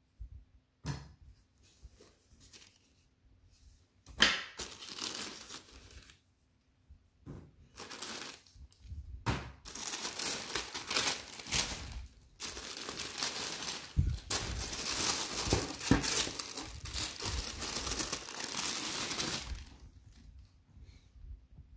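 Tissue paper crinkling and rustling as hands fold it back inside a cardboard shoebox, in scattered bursts at first, then almost continuously through the middle of the stretch before dying down near the end.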